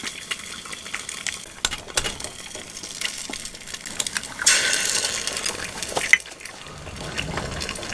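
Eggs frying in oil in a cast-iron skillet, with a steady crackle and spatter. About halfway through, a second egg goes into the pan and the sizzle swells loudly for a second or so, followed by a sharp knock.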